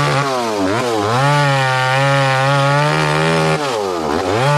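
Two-stroke chainsaw cutting through felled branches at high revs. Its pitch dips briefly twice as the throttle is eased, holds steady and high for a few seconds, then drops again near the end.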